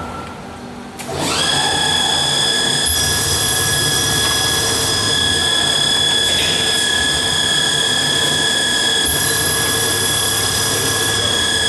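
CMA Rapid coordinate drilling machine countersinking holes with an 18 mm solid carbide countersink under external coolant: a steady high-pitched machining whine sets in about a second in and holds. The cutting noise swells twice.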